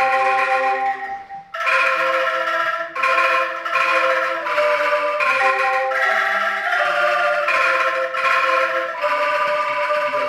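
Angklung ensemble playing a tune: shaken bamboo angklungs, each tuned to a single note, sounding one after another and together in chords. The music breaks off briefly about a second and a half in, then goes on.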